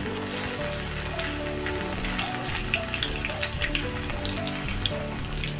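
Hot oil sizzling and crackling steadily as stuffed dough rings deep-fry in a pan, with background music alongside.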